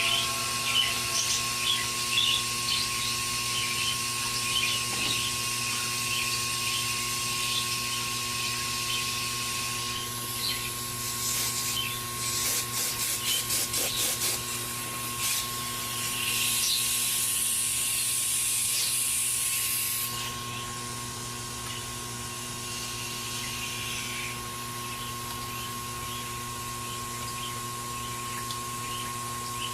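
Compressed air from an air-compressor blow nozzle: a run of quick short bursts, then a steadier blast of a few seconds that cuts off suddenly. A steady high tone runs underneath.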